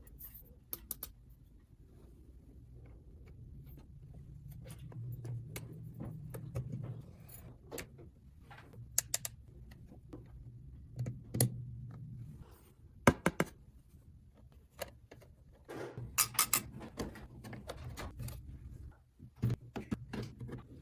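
Small hard objects handled up close: scattered clicks and clacks, a quick triple tap about 9 s in, the loudest knocks about 13 s in and a rapid cluster around 16 s, over a low steady hum.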